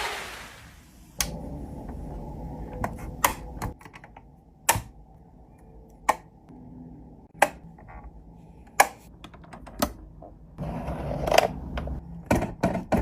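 Hands handling a boxed diecast model car and its packaging: irregular sharp clicks and taps of plastic and cardboard, about a dozen, over low rustling handling noise.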